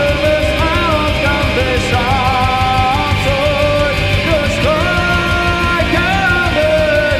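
Symphonic metal band playing live: a male singer holds long, wavering notes over pounding drums, electric guitars and bass.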